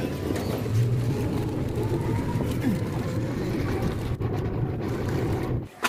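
Steady rumble of a moving vehicle, strongest in the low range, cutting off abruptly near the end.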